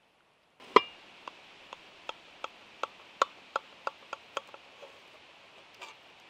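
A knife cutting through an apple pie in an iron pot, clicking against the pot at each stroke: one sharp loud click, then a regular run of clicks about three a second that thins out after a few seconds.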